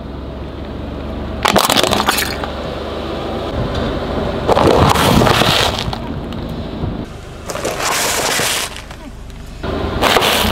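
A car tyre crushing plastic and snack packets: four separate bursts of cracking and crunching over a low steady hum.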